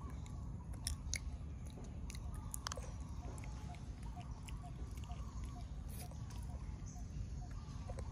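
Long-tailed macaque chewing and biting food close by, with scattered crisp clicks and crunches, most of them in the first three seconds, over a steady low background rumble.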